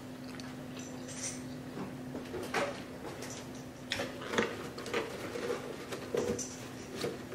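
A white cardboard takeout box being picked up, moved about and set down: a string of light knocks, clicks and rustles, over a faint steady hum.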